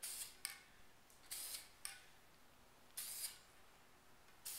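Aerosol spray paint can spraying in short hissing bursts, three of them plus a fourth starting at the very end, each laying down a quick stripe of paint. Short sharp clicks come between some of the bursts.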